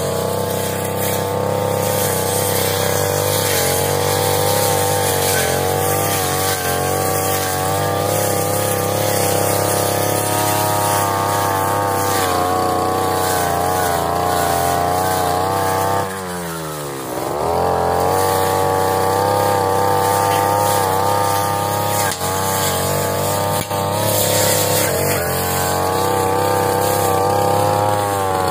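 Brush cutter engine running steadily at high revs. About 16 seconds in the throttle is released and the pitch drops, then it revs back up to full speed.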